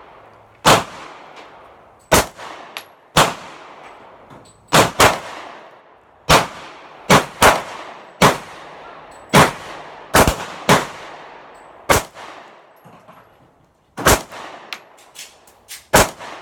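Sig Sauer P365 pistol fired one shot at a time, about a dozen sharp cracks at uneven intervals of roughly half a second to two seconds, each with a short echoing tail. On this magazine the pistol repeatedly fails to eject the spent case.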